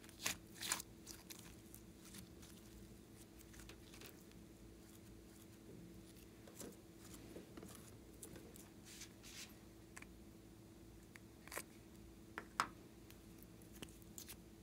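Quiet handling noise from slime-making: soft sticky crackles and a few sharp plastic clicks from hands working clay, slime and a lip-gloss tube. The loudest clicks come just after the start and again about three-quarters through, over a steady low hum.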